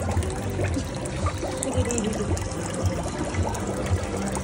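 Water trickling and pouring steadily in a shallow fish-spa pool.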